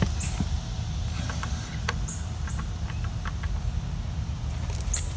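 Outdoor hose spigot being turned on by hand: a few light clicks from the valve handle and several short, high squeaks, over a steady low rumble.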